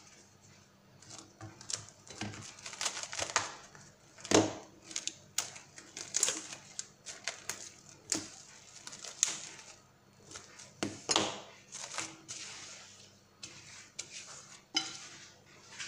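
Plastic cling film crinkling in irregular crackles as hands press and smooth it around the rim of a glass mixing bowl, with the loudest crackles about four seconds in and again about eleven seconds in.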